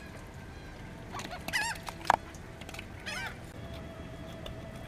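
Gulls calling: two short bursts of arching, rising-and-falling cries, about a second and a half in and again near three seconds. A single sharp knock comes just after the first burst.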